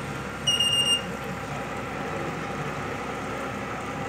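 A single short, high-pitched electronic beep from the card-and-coin water ATM controller's buzzer as the unit powers up, about half a second in. Steady background noise runs under it.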